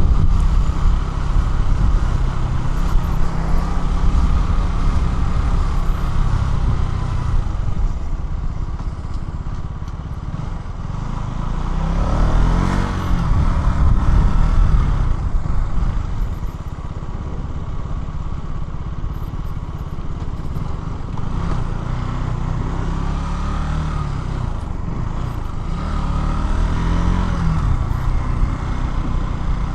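KTM Duke 200's single-cylinder four-stroke engine running on the move, its revs rising and falling several times, most strongly about halfway through.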